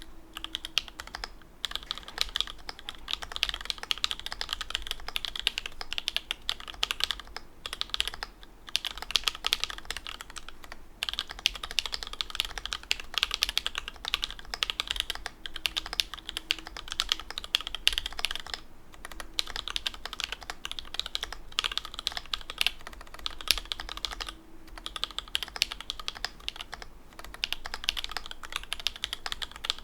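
Fast, continuous typing on a mechanical keyboard with lubed and filmed C3 Tangerine linear switches, a carbon fiber plate and dye-sub Cherry-profile keycaps. The key strokes run as a dense stream of clicks, broken by a few brief pauses.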